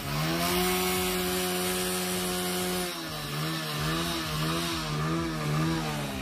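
Hero Honda Splendor's small single-cylinder four-stroke engine, running on a petrol-diesel mixture, revved and held high for about three seconds. It then takes a quick run of short throttle blips, about two a second, and drops back toward idle near the end.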